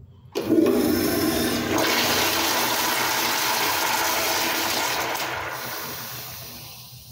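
Commercial toilet with a chrome flushometer valve being flushed: a sudden loud rush of water starts just after the handle is kicked down, runs steadily for about five seconds, then tapers off as the valve shuts.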